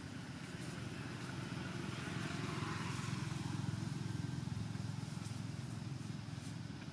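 Low engine rumble of a passing motor vehicle, swelling about two seconds in and fading again, with a few faint clicks.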